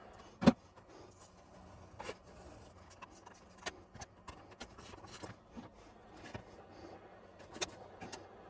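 Small clicks and scratchy crackles of a glue-backed membrane keyboard being peeled off a ZX81 case while a heat gun runs steadily close by. A single sharp knock about half a second in is the loudest sound.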